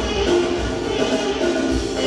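Music with a steady beat, about two low drum beats a second, under a sustained melody.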